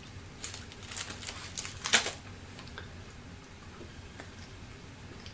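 Candy bag crinkling in a few short rustles as sour gummy snakes are taken out, the loudest near two seconds in.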